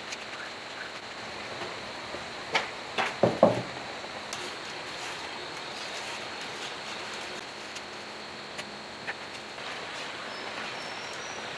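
Faint steady background hiss with a thin high whine, broken by a short cluster of light knocks and clicks about three seconds in.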